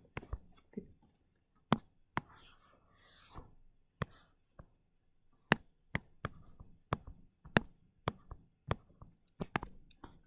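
Irregular sharp taps and clicks of a stylus on a tablet screen during pen writing, roughly one or two a second, with a soft breathy noise around two to three seconds in.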